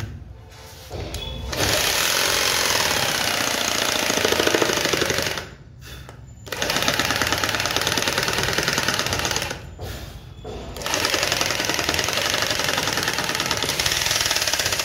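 500 W electric jigsaw cutting a curve through a wooden plank, the blade running at speed. The saw stops briefly three times, about a second in, around six seconds in and around ten seconds in, then starts cutting again.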